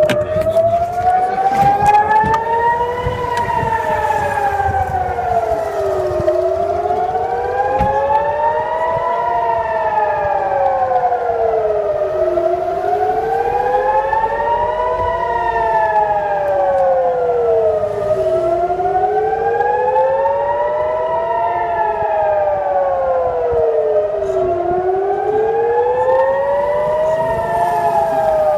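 Israeli civil-defence air-raid siren wailing, two tones sounding together that rise and fall in pitch in slow cycles about six seconds long. The rising-and-falling wail is the alarm that warns of incoming rockets.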